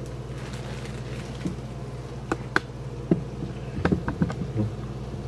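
Bacon cooking slowly in a frying pan, with a few sharp pops and crackles about two to four seconds in, over a steady low buzzing hum.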